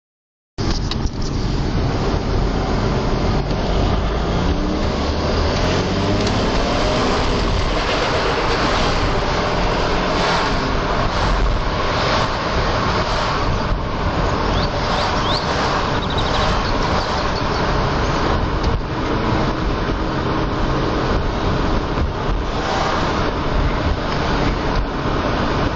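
Audi A6 4B's 2.5 TDI V6 diesel (engine code AFB) running with an unusually loud noise that sounds like the turbocharger, which the owner suspects as its source. The sound starts about half a second in, and its pitch rises over the first few seconds.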